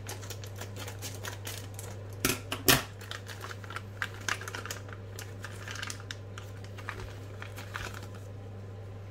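Plastic parts bag crinkling and rustling in the hands as it is opened, a run of small crackles with two louder snaps a little over two seconds in.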